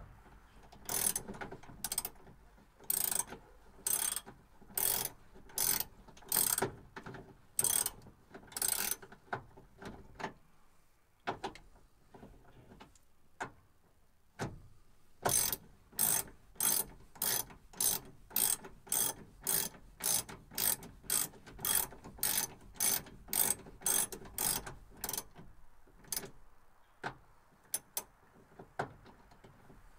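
Socket ratchet wrench being worked back and forth, its pawl clicking on each back-stroke about twice a second. There are two runs of strokes with a pause of several seconds between them.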